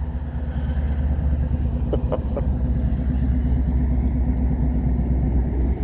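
Diesel locomotive engine running at a steady idle: a low, even rumble, with a few faint ticks about two seconds in.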